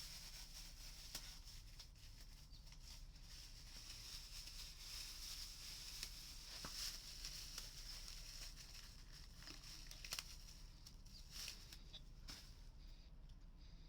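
Near silence: a faint steady high hiss with scattered light clicks and knocks.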